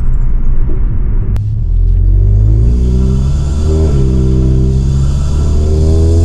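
Stage 3 tuned Volkswagen Golf GTI Mk7's turbocharged four-cylinder engine and decat exhaust, heard from inside the car. First a rumbling stretch off the throttle with a sharp click, then the engine note climbs under acceleration, drops briefly at an upshift about four seconds in, and climbs again.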